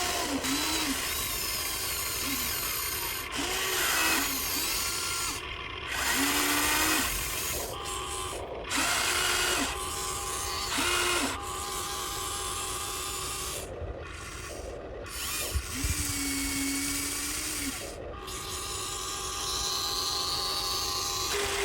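Huina RC excavator's small electric motors and plastic gearboxes whining as the model is worked, in a run of short whines that rise, hold briefly and fall, one after another.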